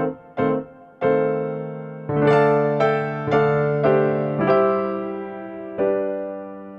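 Background music: an electric piano playing a simple melody of single struck notes over a low chord. Near the end it settles on one long held chord that slowly fades.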